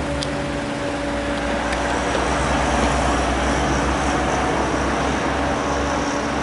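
A low-flying four-engine turboprop aircraft, a P-3 Orion, passes overhead on approach with its landing gear down. The propellers and engines give a steady drone with a hum and a faint high whine, swelling a little through the middle.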